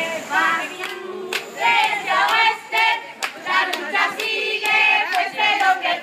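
Crowd of protesters chanting a slogan in unison while clapping in time, about two claps a second.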